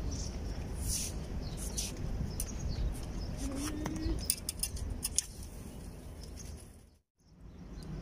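Wind buffeting the microphone as a low rumble, with small birds chirping in short high notes throughout. The sound fades out about seven seconds in and comes back after a moment.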